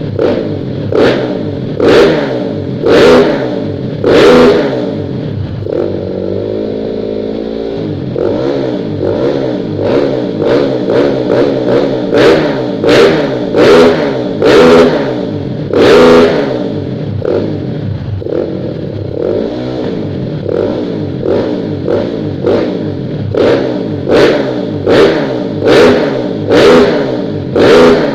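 Kawasaki KLX 150BF single-cylinder four-stroke engine, bored up to 220cc and running a Norifumi Rocket 4 aftermarket exhaust, idling and being blipped in short sharp revs. The revs come in clusters, often about one a second, with a briefly held rise in revs a few seconds in.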